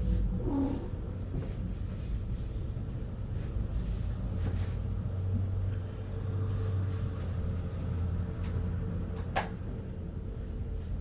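Steady low hum with faint scattered knocks and clatter of handling, and one sharp click about nine seconds in.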